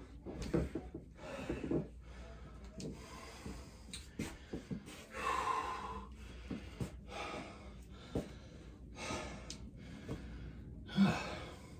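A man breathing hard from exertion, heavy breaths in and out about once a second, with one longer, voiced exhale about five seconds in.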